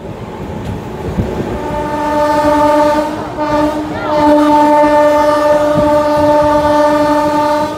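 Train horn sounding two long blasts, the first starting about a couple of seconds in and breaking off briefly, the second from about four seconds in to the end, over the running noise of the moving train.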